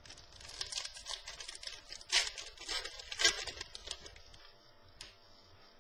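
Trading cards being handled and shuffled: a run of dry rustling and scraping, with sharper crackles about two and three seconds in, stopping a little after four seconds.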